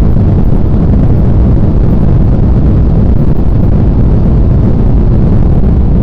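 Airliner cabin noise during the landing roll: a loud, steady low rumble of the engines and the wheels rolling on the runway.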